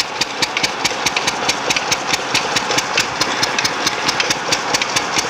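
Single-cylinder stationary diesel engine with twin flywheels, of the kind used to pump water from a well, running steadily with a slow, even knocking beat of about four to five strokes a second.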